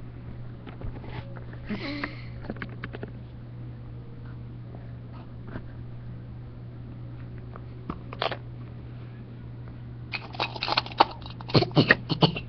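Scattered light clicks and knocks over a steady low electrical hum, with a quick run of sharp knocks near the end.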